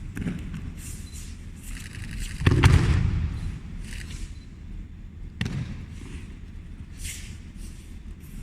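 A heavy thud of a body landing on the mat about two and a half seconds in, with lighter knocks and rustles of feet and gi on the mat before and after it.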